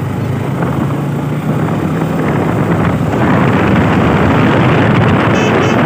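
A motorbike engine runs steadily while riding along a dirt road. About three seconds in, a loud rush of wind noise on the microphone builds over it as the bike picks up speed.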